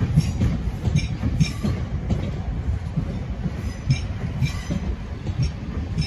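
South Western Railway Class 701 Arterio electric train running past close by: a steady wheel-and-rail rumble, with pairs of sharp clicks as each bogie's wheels cross rail joints.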